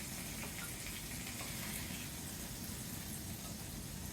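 Hot skillet sizzling steadily with pan juices after the pork slices are lifted out, with a couple of faint clicks.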